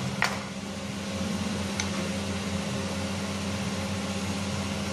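Steady low hum and hiss of running room machinery, with a sharp click just after the start and a faint tick about two seconds in.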